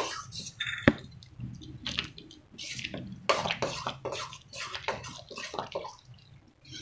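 A metal ladle stirring cooked dal and spinach into fried onions in a stainless steel kadai: irregular wet sloshing and scraping, with one sharp clink of the ladle on the pan about a second in.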